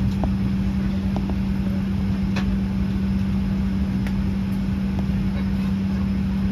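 Boeing 737-800 cabin ambience at the gate with the engines not yet started: a steady rush of air-conditioning airflow under an unchanging low hum, with a few light clicks.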